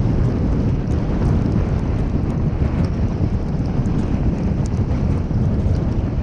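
A car's steady low rumble of road and wind noise while driving, with faint scattered ticks.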